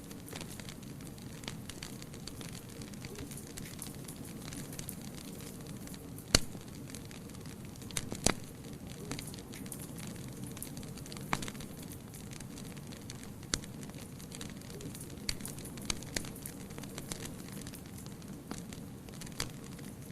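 Wood fire burning in a fireplace: a steady low rumble of flames with scattered sharp crackles and pops, the loudest pops about a third of the way in.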